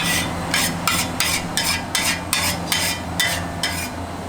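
A metal spatula is scraping and striking a wok as fried rice is stirred and tossed. The strokes are quick and clanking, at about three a second.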